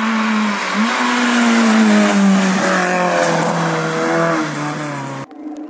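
Rally car engine running hard at high revs as the car approaches on the stage, with a brief lift about a second in, then the engine note falling steadily over the next few seconds as it comes past. The sound cuts off abruptly about five seconds in.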